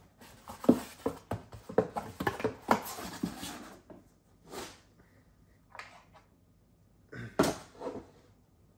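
Handling noise of hard plastic graded-card slabs being knocked and stacked together, a quick run of clicks and knocks with some rustling, then a few separate knocks further on.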